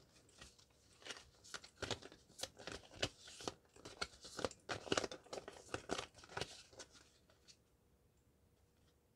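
Haunted House Tarot deck being shuffled by hand, the cards rustling and snapping against each other in quick irregular strokes, stopping about seven and a half seconds in.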